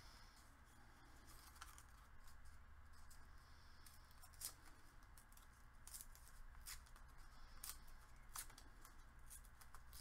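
Faint, scattered crisp clicks and rustles of paper being handled by hand during paper-craft collage work, over a low steady hum.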